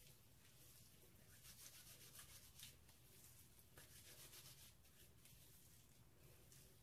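Faint rubbing and swishing of hands working a creamy treatment through wet hair, in brief strokes over a low room hum.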